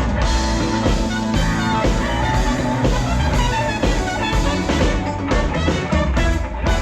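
Live band playing an instrumental passage of upbeat Latin pop, with drum kit, bass and guitar.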